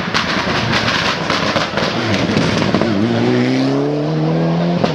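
Mitsubishi Lancer Evolution rally car's turbocharged four-cylinder engine through a hairpin: a rapid string of crackling pops and bangs off the throttle. Then the engine note dips and climbs steadily as it accelerates away.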